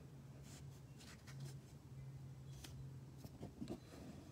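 Faint rustling and crinkling of a printed paper sheet being held and adjusted by hand, with scattered small clicks, over a low steady hum.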